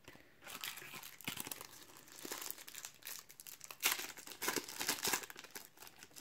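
Foil wrapper of a Panini Ekstraklasa 15/16 trading-card packet crinkling irregularly as it is handled and torn open by hand.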